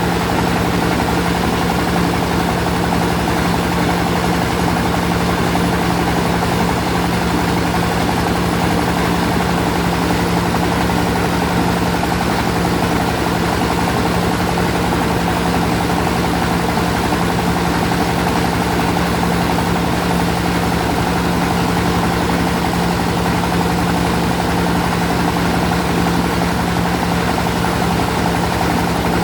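Rice milling machine running steadily: a constant mechanical drone with a strong low hum that does not change.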